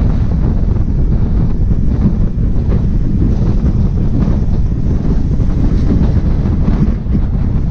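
Loud, steady wind rumble buffeting the microphone, heaviest in the low end, with no distinct engine note standing out.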